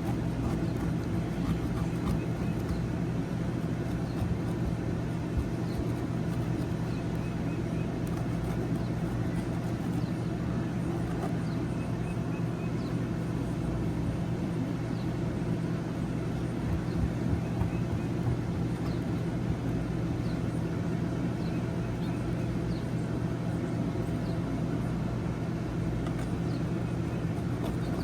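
A steady, unchanging low mechanical hum, like a motor or engine running, with faint high chirps now and then.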